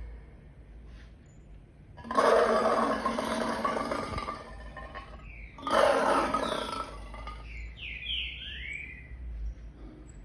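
Lion roaring: two long, loud roars, the second starting about a second after the first ends, played back from a recording on a computer.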